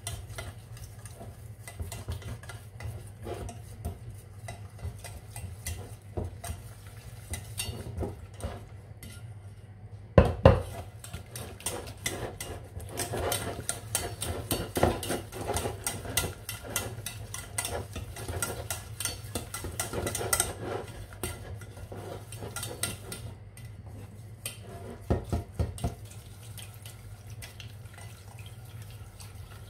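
Wire whisk beating flour and butter in a stainless steel saucepan: quick clicks and scrapes of the wires against the pot, fastest in the middle, with one loud knock about ten seconds in. Milk is poured into the pot near the end.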